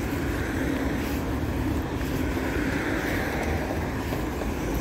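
Steady street noise: road traffic with wind rumbling on the phone's microphone as she walks.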